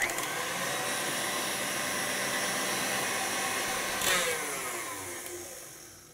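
Stand mixer's motor running steadily with its wire whip beating egg whites into meringue. About four seconds in it is switched off and winds down, falling in pitch as it fades.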